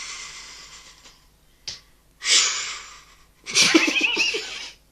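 A person imitating ocean waves with the mouth: long hissing 'shhh' exhalations that swell and fade away. There are three surges, the last one near the end mixed with voice.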